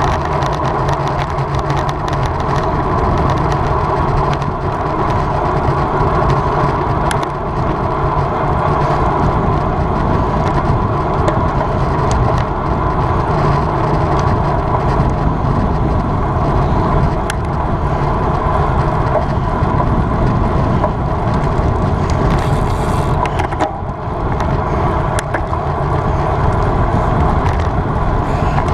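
Steady rush of wind and road noise from a road bicycle ridden at race speed, heard on the rider's camera microphone, with a brief lull about 24 seconds in.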